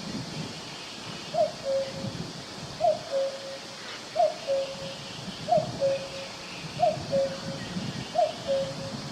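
Common cuckoo calling "cuck-oo" six times at an even pace, about one call every second and a half. Each call is a higher note dropping to a lower, longer one.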